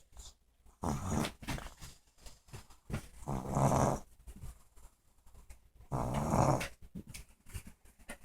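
A sleeping dog snoring, a rasping snore with each breath, three in all about every two and a half to three seconds, the last two the loudest.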